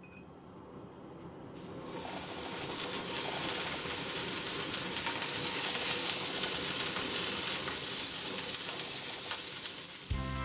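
Slices of beef sizzling in a hot nonstick frying pan. The sizzle starts about a second and a half in, builds over the next second or two, then holds as a steady hiss with light crackles.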